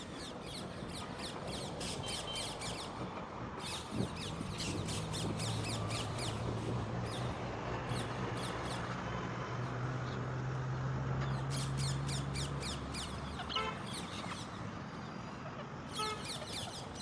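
A flock of parrots calling in fast runs of harsh, repeated squawks that come in bursts with short breaks. A low steady hum starts about four seconds in and stops a few seconds before the end.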